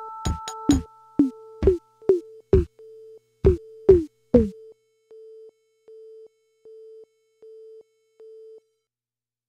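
Casio SA-20 keyboard music: a short electronic tone pulsing about once every 0.8 s under drum-machine beats, with two held higher notes that end about two seconds in. About halfway through the drums stop and the pulsing tone goes on alone until it stops shortly before the end.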